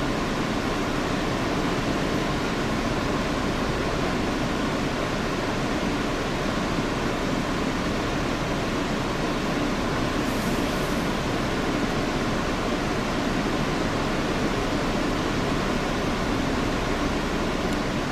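Steady hiss and low hum inside an R160 subway car, with no clicks or changes.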